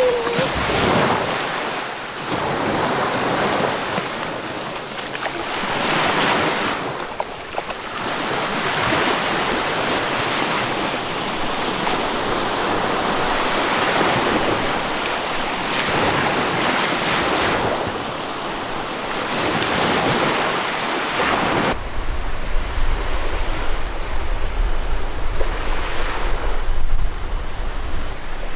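Ocean surf: waves breaking and washing in, swelling and fading every few seconds. About 22 seconds in, the surf gives way to wind buffeting the microphone with a low rumble.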